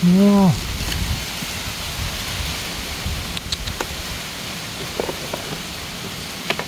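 A man's brief exclamation of "whoa" at the start, then a steady hiss with a few faint clicks.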